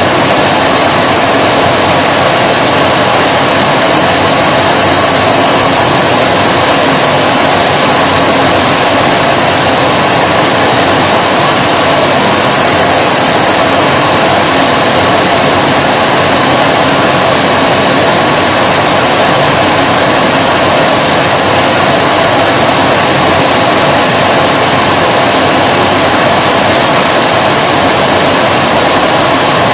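Vacuum cleaner running continuously: a loud, steady rushing hum of motor and airflow, with no change in pitch or level.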